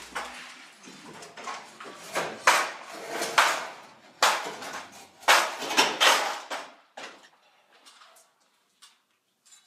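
Demolition work on masonry: irregular strikes and crashes with clattering debris, several heavy blows in the first seven seconds, then only a few faint knocks near the end.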